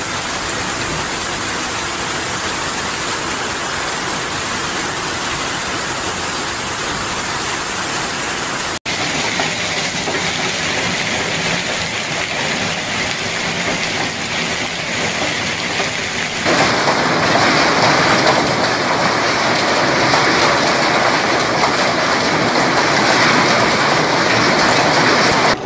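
Heavy hail pelting down on pavement, ground and trees: a dense, steady clatter. It changes abruptly twice, and the last third is louder and brighter.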